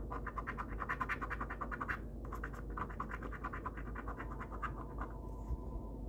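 Rapid scraping strokes rubbing the coating off an instant lottery scratch-off ticket, in two runs with a short break about two seconds in, the second run thinning out near the end.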